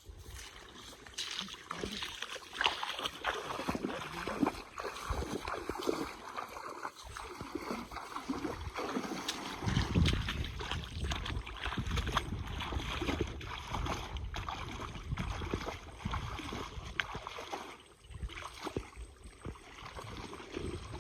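Irregular splashing and sloshing of water as a fishing net is worked in a pond, with a louder low surge about ten seconds in.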